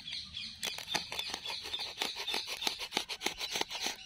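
Knife blade slicing through clear plastic wrap on a thermocol (expanded polystyrene foam) box: a run of quick, irregular scratching as the blade drags along the foam seam.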